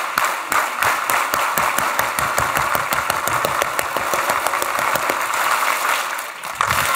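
Large crowd applauding: dense, steady clapping with cheering.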